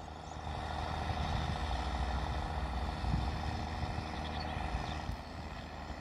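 Ford TW25 tractor's straight-piped six-cylinder turbo diesel working under load as it pulls a four-furrow plough: a steady low engine rumble that swells slightly about half a second in and eases again near the end.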